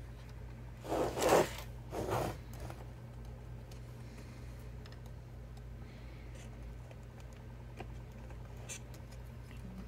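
Handling noise from wiring being pushed down into a car stereo's metal chassis: two brief scraping rustles about a second and two seconds in, then faint scattered clicks, over a steady low hum.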